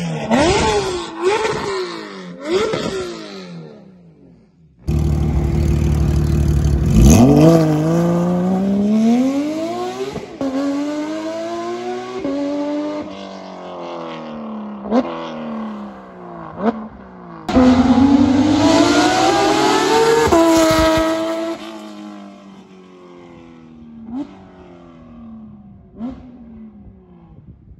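Porsche 992 GT3's 4.0-litre flat-six through a SOUL competition race exhaust. It gives a few quick throttle blips, then accelerates hard with the pitch climbing and dropping at each upshift, makes a second loud full-throttle run, and fades with sharp rev blips in the distance.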